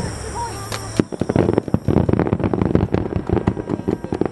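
Aerial fireworks going off overhead: a sharp bang about a second in, then a dense, rapid crackling of many small reports as the shells' stars burst and fall.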